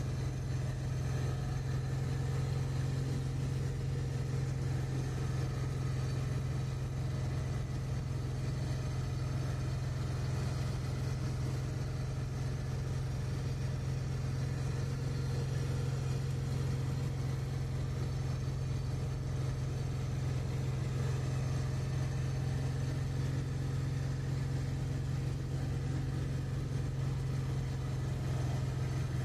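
Car engine running steadily under load as it pulls up a steep street, heard from inside the cabin as a constant low drone that holds one pitch throughout.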